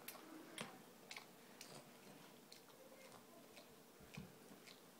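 A Boston terrier licking another dog's mouth: faint, wet tongue clicks and smacks, irregular, about two a second.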